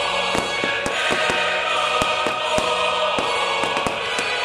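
Choral music played over a fireworks display, with sharp firework shots from comets fired in fans about two or three times a second.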